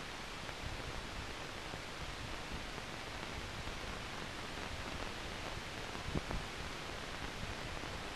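Steady hiss and crackle of the blank audio track of a silent newsreel, with no other sound, and a couple of faint clicks about six seconds in.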